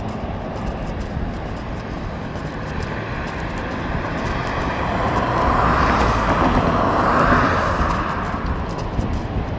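Road traffic: a vehicle passing on the road, growing louder to a peak about six to seven seconds in and then fading, over a steady low rumble.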